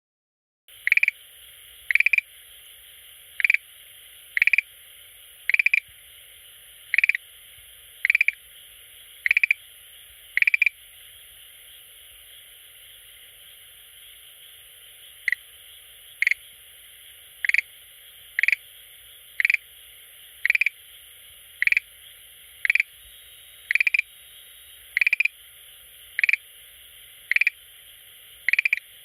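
Schlegel's green tree frog calling: short croaking calls about once a second, in a run of nine, then a pause of a few seconds, then another steady run.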